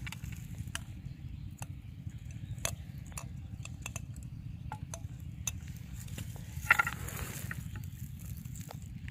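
Close handling noise: scattered small clicks and rustles as hands work a fishing rod and bait a hook, over a steady low rumble, with a brief louder rustle about two-thirds of the way in.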